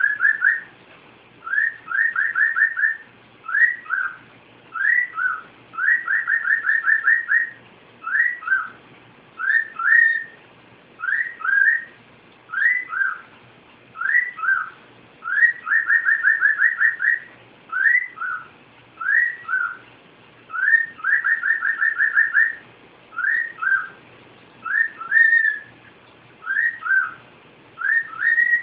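Cockatiel whistling a repeated tune: clear, high swooping notes in ones and twos, alternating every few seconds with quick runs of six or so rapid notes.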